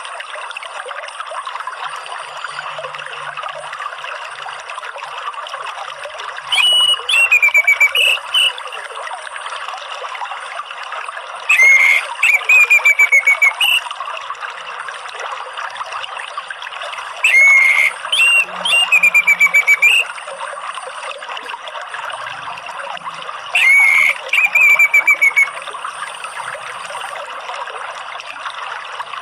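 Orange-headed thrush singing four loud phrases about every five to six seconds, each a sliding whistle breaking into a quick run of repeated notes. Under them, a steady trickle of running water.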